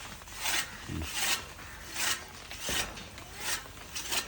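Hand scraping on the old chaff cutter: a series of rasping strokes, about six in four seconds, at a steady back-and-forth pace.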